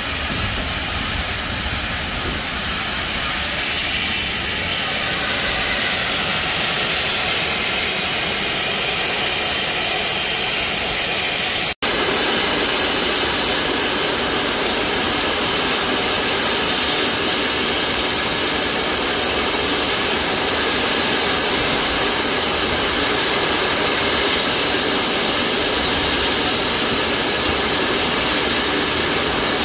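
GWR Manor class 4-6-0 steam locomotive 7822 Foxcote Manor standing with its safety valve lifting, steam blowing off in a steady hiss: the boiler is at full pressure. The hiss grows louder about four seconds in and breaks for a moment just before halfway.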